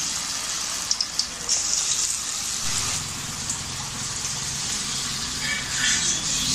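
Cabbage-and-mushroom batter balls deep-frying in hot oil: a steady hissing sizzle, with a few sharp crackles about a second in.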